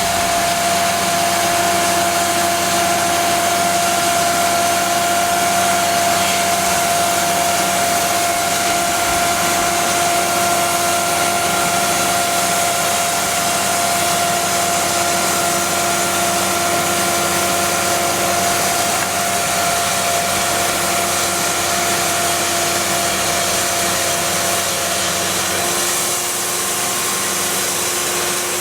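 Cook's AC3662 hydraulic band sawmill running, its 62 hp Perkins diesel and band blade making a steady whine over machine noise. The pitch shifts slightly near the end.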